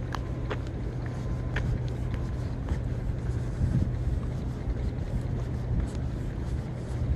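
Boat engine droning steadily and low across the water, with a few faint clicks.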